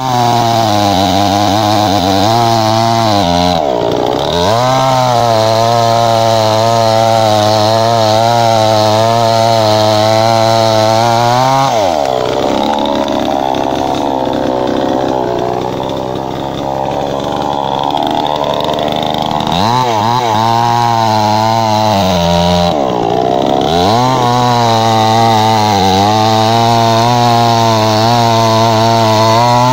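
Petrol chainsaw running at high revs while cutting through the base of slender tree trunks, its engine note wavering under load. The pitch drops and climbs back a few times between cuts, and for several seconds in the middle the saw runs lower and unevenly while it is carried to the next tree.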